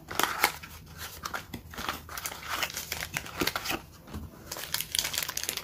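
A Real Littles mini pack being unpacked: the cardboard box handled and a crinkly purple plastic bag pulled out and handled, a continuous run of quick crackles and rustles.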